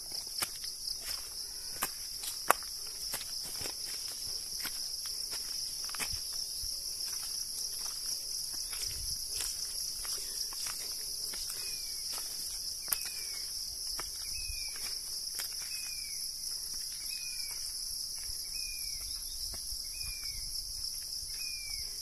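A steady, shrill insect chorus with the footsteps of someone walking up a hillside path, giving sharp scuffs and clicks mostly in the first half. From about halfway, a bird repeats a short falling note every second or so.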